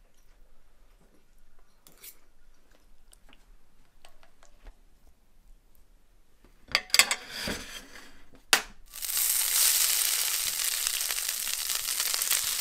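Faint clicks, then a few loud knocks and scrapes about seven seconds in, and from about nine seconds a steady loud frying sizzle as flaked sockeye salmon meat is slid from a cutting board into a hot cast iron skillet.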